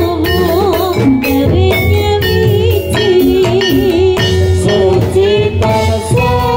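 Javanese gamelan music accompanying a jathilan trance dance: a steady drum beat over held metallophone tones and a wavering, ornamented lead melody.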